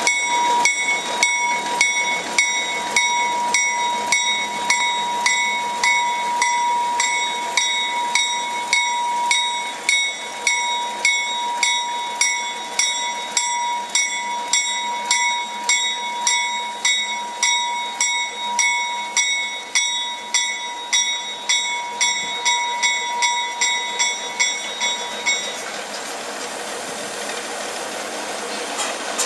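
Small diesel switcher locomotive's bell ringing steadily, about two strikes a second, while the locomotive moves slowly with its engine running underneath. The ringing stops about 25 seconds in, leaving only the engine.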